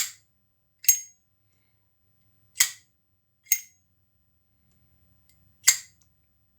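Zippo Armor case lighter in tumbled brass, its hinged lid flicked open and snapped shut: five sharp metallic clicks, each with a brief bright ringing 'ping', in two quick pairs and then one more.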